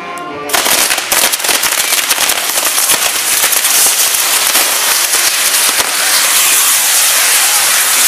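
A fireworks castillo going off: a dense, continuous crackling of firecrackers that starts suddenly about half a second in and keeps up without a break.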